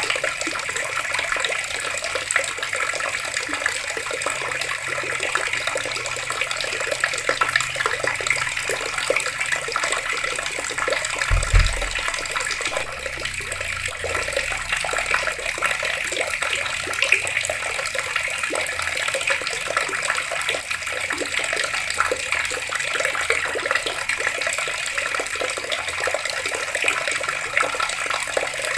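Water running steadily from taps, an even splashing rush with no pauses. A brief low thump stands out about halfway through.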